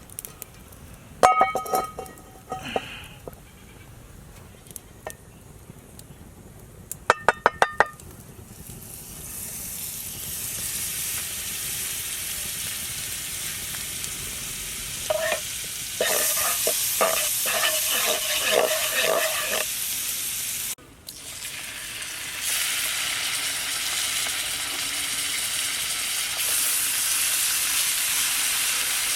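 A few sharp metal clinks on a pan, then food frying in hot fat, sizzling and building steadily louder. A utensil clinks and scrapes against the pan in a quick run of stirring strokes, and after a brief break the sizzle carries on louder.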